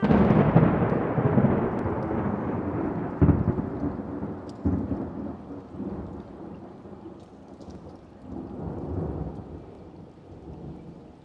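A thunderclap that breaks suddenly and rolls on as a deep rumble, surging again a few seconds in and slowly dying away.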